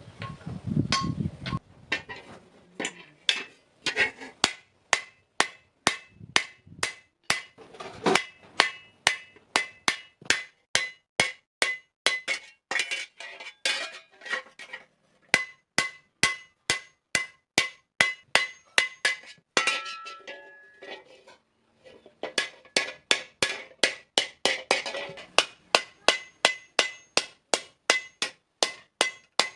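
Hammer blows on hot iron over an anvil in a steady forging rhythm, about two to three blows a second, each with a short metallic ring. The hammering pauses briefly about two-thirds of the way in.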